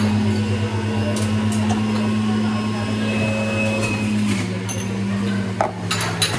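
Café ambience at an espresso machine: a steady low machine hum that drops slightly in pitch about four seconds in, with faint background voices and a couple of light clinks near the end.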